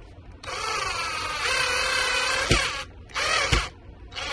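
Cordless drill driving screws into a cabinet door hinge, its motor whining in one long run of about two seconds, then a short burst, then a third starting at the very end. Sharp clicks come near the end of the first two runs.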